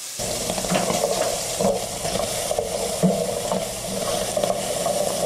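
Chopped bacon sizzling steadily in a stainless steel frying pan as it renders its fat, with small knocks of the stirring utensil against the pan.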